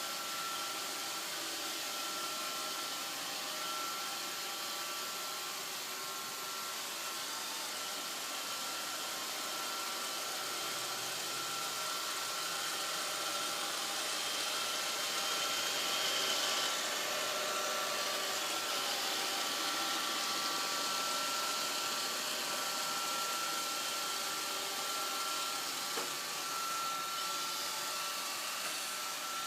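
Roomba robot vacuum running: steady motor and brush noise with a thin, steady high whine.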